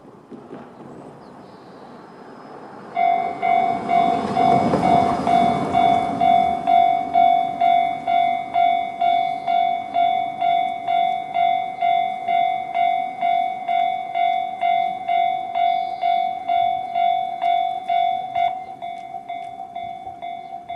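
Japanese level crossing's electronic warning bell in the JR standard tone starts about three seconds in and rings steadily at about two strikes a second, turning quieter near the end. As it starts, a passing vehicle's rushing noise swells and fades.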